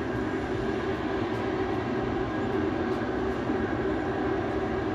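Volcanic steam fumaroles venting loudly: a steady, unbroken rush of steam that holds at one level throughout.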